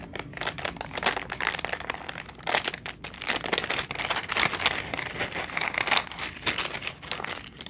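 A cat-treat bag crinkling as a hand digs in it for treats: a dense, continuous run of rustles that starts suddenly and stops shortly before the end.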